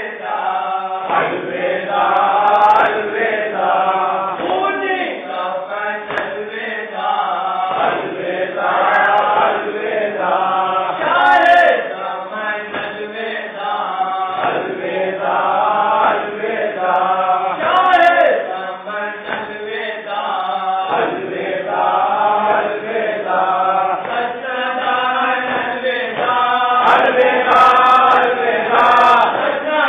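A group of men chanting a nauha, a Shia Muharram lament, together in unison. The phrases run one into the next, with short breaks every several seconds.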